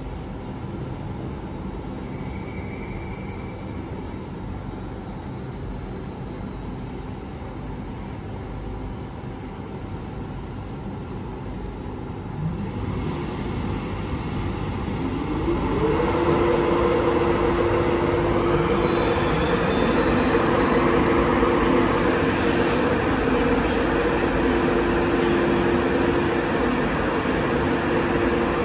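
Class 91 electric locomotive pulling away: steady running noise, then about halfway through a whine that rises in pitch over some three seconds and settles into a steady two-note drone as the sound grows louder. A brief hiss comes a few seconds later.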